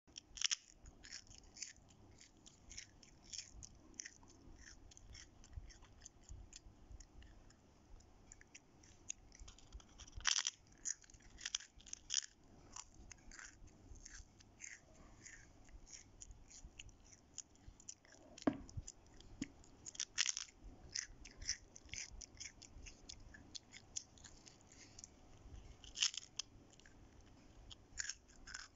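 A child biting and chewing crispy keropok ikan losong (Terengganu fish cracker) close to the microphone: a steady run of small crunching clicks, with a few louder crunches scattered through.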